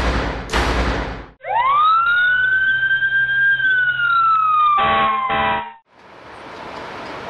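Fire engine siren winding up from low to high, then slowly winding down, over a low engine hum, with two short air-horn blasts near the end. It is preceded by heavy drum hits and followed by a steady rushing noise.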